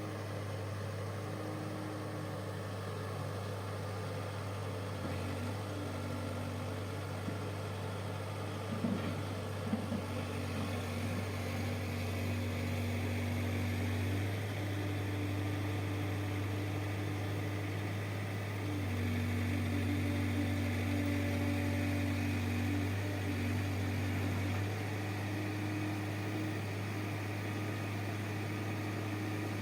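Heavy machine's engine running steadily, its note shifting between two pitches every few seconds, with a few short knocks about nine seconds in.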